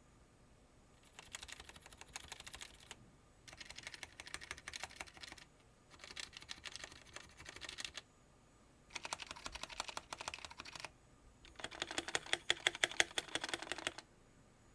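Typing on a GamaKay K66 mechanical keyboard with red linear switches: five bursts of rapid key presses, each about two seconds long, with short pauses between them. The last burst is the loudest.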